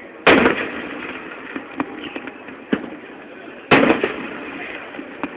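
Fireworks going off: two loud aerial shell bursts about three and a half seconds apart, each fading away over a second, with a few sharp single cracks between them.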